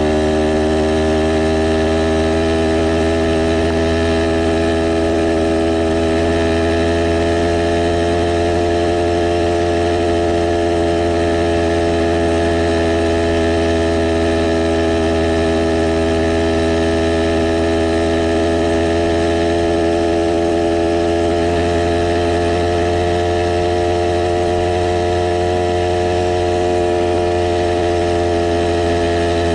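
Two-stroke Stihl MS 460 chainsaw engine driving a motorized bicycle, running steadily at cruising throttle with its pitch drifting gently up and down.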